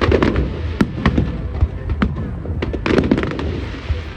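Fireworks display: rapid, irregular bangs and crackles from bursting shells, several a second, over a low steady rumble.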